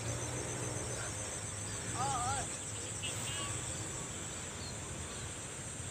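Insects shrilling in a steady high drone across the fields, with a few short warbling calls, the loudest about two seconds in.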